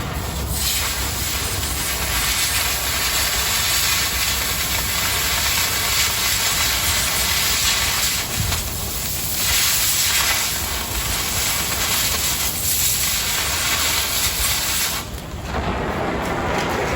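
Oxy-fuel cutting torch hissing steadily as it cuts quarter-inch steel plate. The high hiss drops out about fifteen seconds in, leaving a lower rumble.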